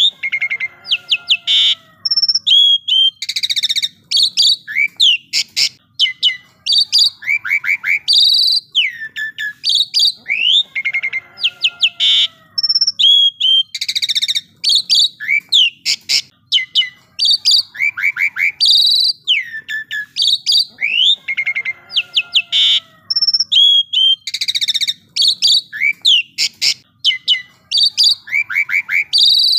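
Asian pied starling (jalak suren) singing a loud, varied song of whistles, quick runs of rising notes and short harsh rasping calls. The same sequence of phrases repeats about every five and a half seconds, as in a looped recording.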